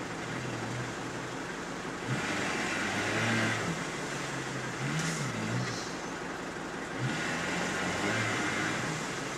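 Off-road 4x4 engine revving up and down in repeated bursts while working under load in deep mud and water.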